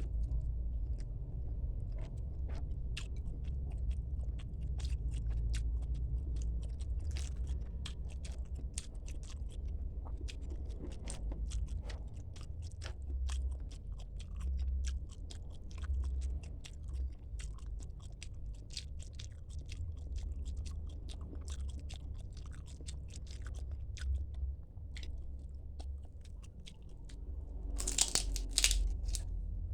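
Close-miked chewing and biting while eating mujair fish (tilapia) with spinach: a dense run of small crunches and wet mouth clicks. A louder, harsher crunch comes near the end.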